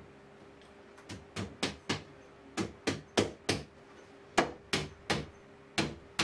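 Sharp hammer blows, about a dozen in short runs of three or four at roughly three a second, with brief pauses between the runs.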